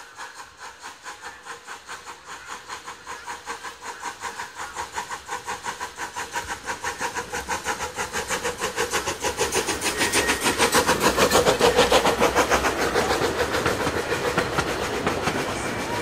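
A 381 mm-gauge Krauss Liliput miniature steam locomotive pulling its train away and past, chuffing in a quick, even beat of about five a second that grows louder as it approaches and is loudest as the engine goes by. The open coaches then roll past on the rails.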